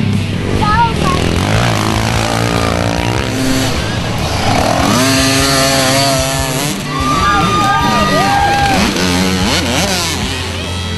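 Small youth dirt bike engines buzzing and revving, their pitch sweeping up and down repeatedly as the riders work the throttle, with background music underneath.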